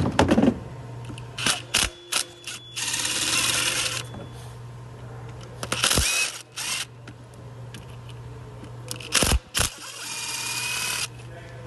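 Two bursts of a tool spinning out the T30 Torx bolts that hold the ignition coil, each about a second long, among sharp clicks and knocks of tool and bolts.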